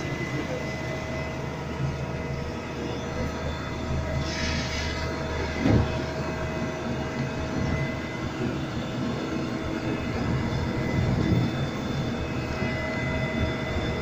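Asphalt paver and the tipper truck feeding it, their diesel engines running steadily with a constant whine. A brief hiss comes about four seconds in, and a thump just before six seconds.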